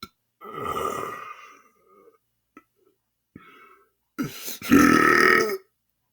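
A man belching deliberately: a drawn-out burp about half a second in, a few small throat sounds, then a louder, longer burp about four seconds in.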